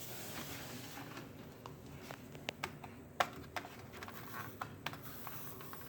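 Faint steady hum with a scattered series of light, sharp clicks and taps, irregularly spaced, the loudest a little after three seconds in.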